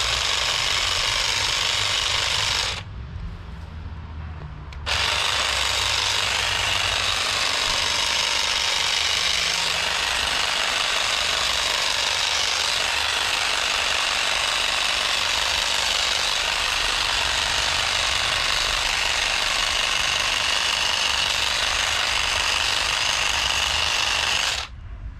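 Battery-powered garden trimmer running at full speed while cutting vegetation. It stops about three seconds in, starts again two seconds later and runs steadily until it cuts off just before the end.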